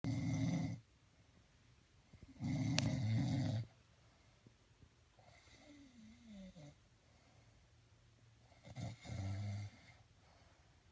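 Snoring: three long, loud snores, each about a second, a few seconds apart, with a faint falling whistle in the quiet between the second and third.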